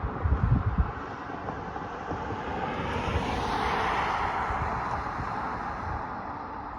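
A vehicle passing by: its noise swells to a peak about halfway through and fades away. Wind buffets the microphone in the first second.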